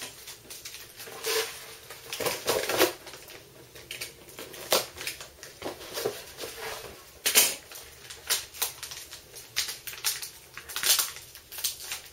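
Plastic packaging, an anti-static bag and plastic wrapping, crinkling and rustling in irregular bursts as it is handled and opened.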